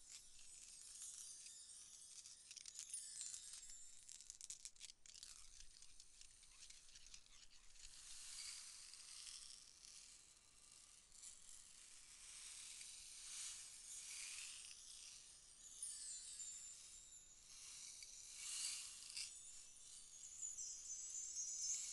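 Faint ambient soundtrack of fine high crackling and glassy, chime-like shimmer, swelling softly about every five seconds, with thin high ringing tones coming in near the end.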